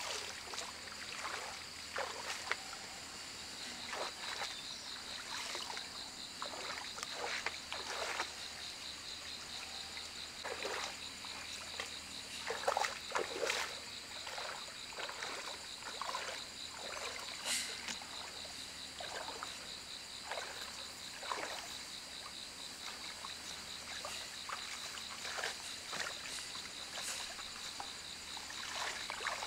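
Irregular wet splashing and swishing strokes, like water or wet mortar being worked by hand, over a steady high insect drone that pulses quickly.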